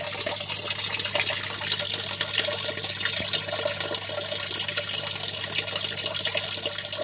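Water splashing and churning steadily at the surface of a fish tank, with a low steady hum beneath.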